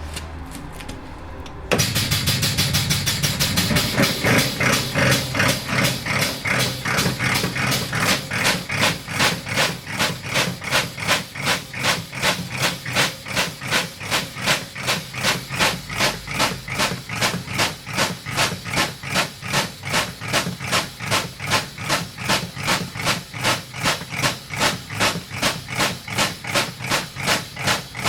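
Compressed-air spray gun washer starting up about two seconds in and running its wash cycle, with a rhythmic pulsing hiss of about two to three pulses a second.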